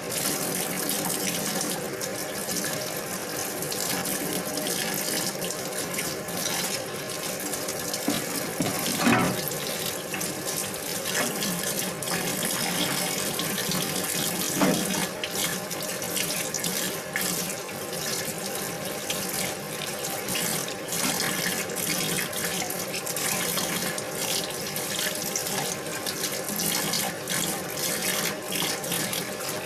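Tap water running steadily into a stainless-steel sink and splashing as green onions are rinsed under it, with a couple of briefly louder splashes.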